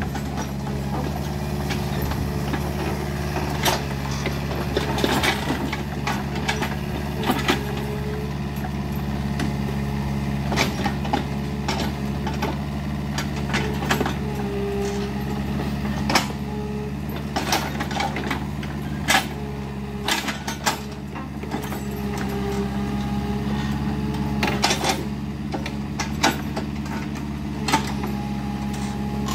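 Kubota mini excavator's diesel engine running steadily, with frequent sharp cracks and knocks throughout.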